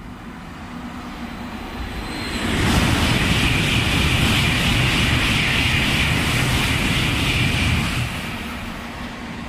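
N700-series Shinkansen passing through at high speed. The rushing noise builds over the first two or three seconds, stays loud for about five seconds as the train runs by, then eases off near the end.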